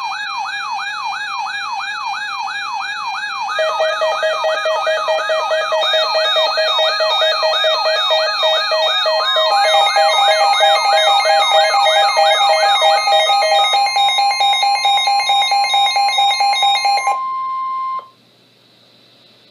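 Layered electronic emergency alert tones: a rising sweep repeating about three times a second over steady tones, with a pulsing lower beep joining a few seconds in. The sweep stops about two-thirds of the way through, leaving a steady tone that cuts off suddenly shortly before the end.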